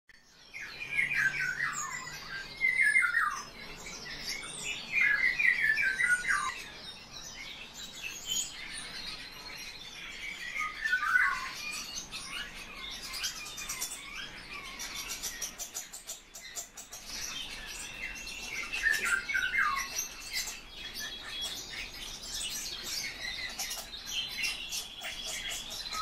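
Eurasian bullfinch calling: runs of short, falling notes in bursts every few seconds, the loudest in the first few seconds and again about halfway through.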